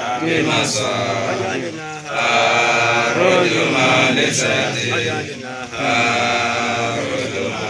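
Men chanting an Islamic prayer in a melodic, drawn-out recitation, with long held notes from about two seconds in and again near the end.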